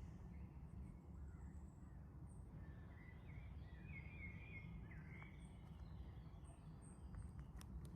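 Quiet countryside ambience: a low steady rumble with faint bird chirps around the middle and a few short, high peeps, and a couple of faint clicks near the end.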